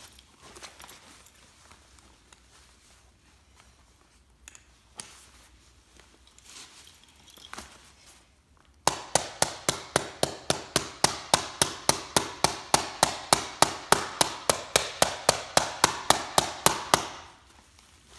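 A run of rapid, even mallet blows, about five a second for some eight seconds, hammering a brass jib hank closed onto a sail grommet. This follows faint handling sounds of the sail being set in place.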